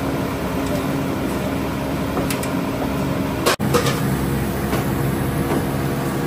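Steady background noise and machine hum of a busy charcoal-grill kebab stall. About three and a half seconds in, a sharp click and a momentary dropout mark an edit cut.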